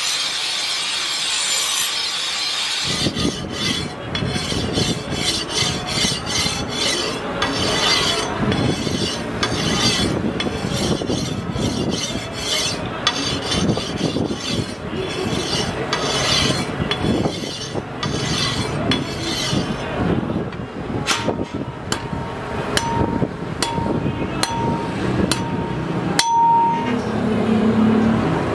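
Steel meat cleaver blade stroked back and forth on a whetstone, a rhythmic rasp of one or two strokes a second. Before it starts, a few seconds in, there is a steady grinding hiss, and in the later part there are sharp metal taps about once a second with a ringing tone.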